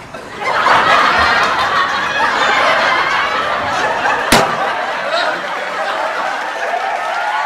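A crowd laughing, many voices at once, starting about half a second in, with a single sharp crack about four seconds in.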